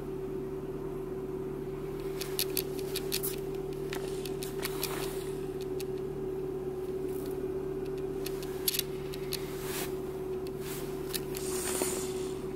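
Renault Clio III's petrol engine idling smoothly at a slightly raised cold-start idle of just over 1,000 rpm, heard from inside the cabin as a steady hum, with a few scattered light clicks.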